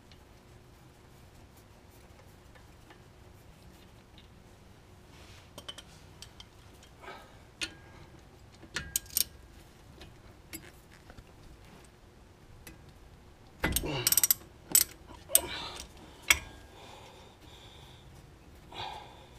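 Hand wrench working a brake caliper bolt loose: scattered sharp metal clicks, then a run of louder metallic clanks and clatter about two-thirds of the way in as the bolt comes free.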